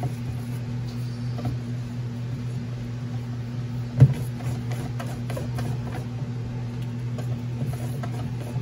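A hand utensil stirring thick rice-flour batter in a stainless steel mixing bowl, with faint scrapes and one sharp knock against the bowl about four seconds in, over a steady low hum.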